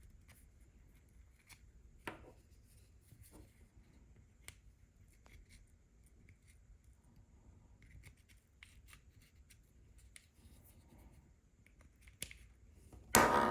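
Faint small clicks and scrapes of a plastic car key fob case being handled and pried apart, with a sharper click about two seconds in and a brief louder noise near the end.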